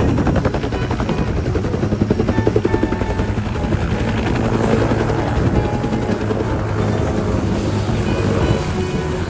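Small helicopter running on the ground nearby: a steady engine noise with the rapid beat of the rotor blades. Background music plays over it.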